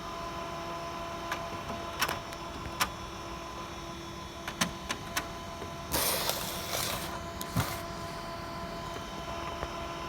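HP Color LaserJet colour laser printer running: a steady hum with scattered sharp clicks, and a louder rushing burst about six seconds in.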